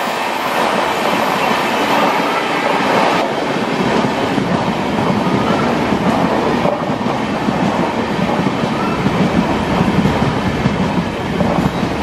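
Express train's passenger coaches rolling past close by: a steady, loud rumble of wheels running over the rails.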